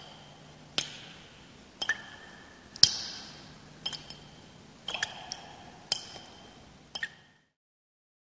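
Water drops plinking, about one sharp ping a second, each with a short ringing tail. The drips cut off suddenly about seven seconds in.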